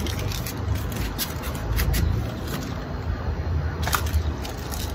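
Clear plastic wrapping on car rain visors crinkling and crackling in short bursts as the wrapped pieces are handled, over a steady low rumble.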